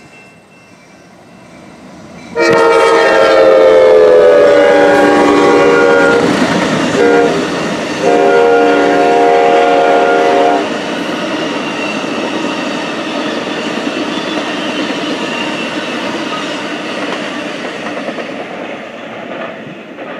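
Amtrak passenger train's locomotive horn sounding two long blasts close by, the first falling slightly in pitch as the train goes past. Then the steady noise of the bi-level Superliner cars' wheels running on the rails, fading near the end as the train moves away.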